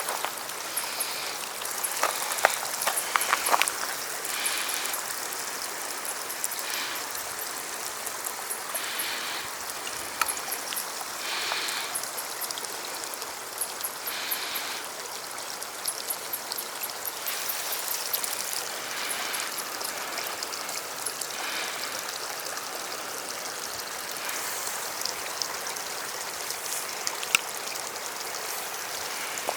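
Running water trickling and splashing steadily, with many small drip-like ticks.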